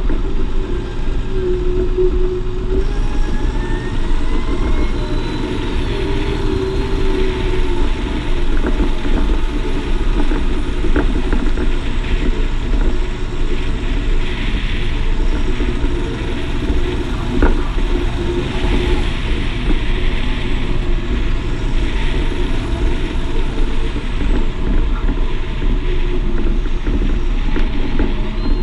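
Claas Axion 850 tractor's six-cylinder diesel engine running steadily under way, heard close from outside the cab. Frequent small knocks and rattles come through as the tractor moves over the ground.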